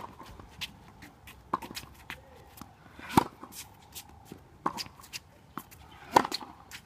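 Tennis rally: a ball struck by rackets back and forth about every second and a half, the hit about three seconds in the loudest, with footsteps and shoes scuffing on the court between shots.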